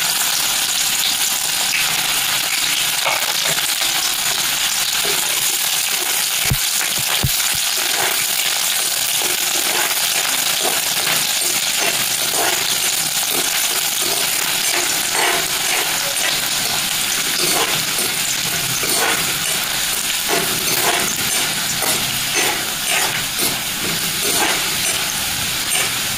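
Chopped onions sizzling in hot oil in a kadhai, frying until they brown. A metal spoon scrapes and clinks against the pan as they are stirred, more often in the second half.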